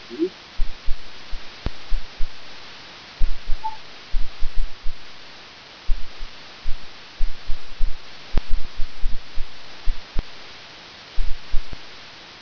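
Computer keyboard and mouse in use close to a microphone: irregular low, dull thumps several times a second and a few sharp clicks, over a steady hiss.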